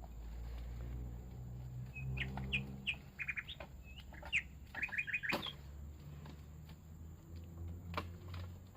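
A forest bird calling in runs of short, quick chirps, some rising in pitch, from about two seconds in to just past five, over a low steady hum. A sharp knock comes about five seconds in and another near the end.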